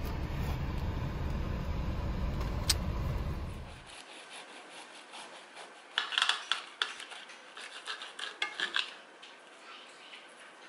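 First a steady low rumble inside a car cabin, with one sharp click. After a cut, a kitchen knife saws through a toasted quesadilla wrap on a ceramic plate: a quick run of scraping, grating strokes with the blade scratching the plate, about six to nine seconds in.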